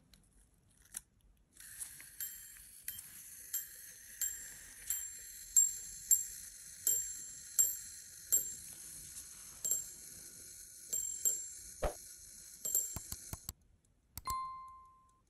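Verge fusee quarter repeater pocket watch striking the time on its small bell: a steady run of clear, high ringing strikes about two-thirds of a second apart, then a few closer-spaced strikes near the end. A short electronic ding follows just after the striking stops.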